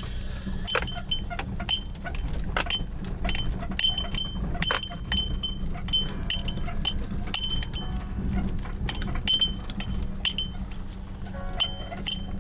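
Small bells or chimes struck many times at irregular intervals, each strike ringing briefly at a high pitch, over a steady low rumble.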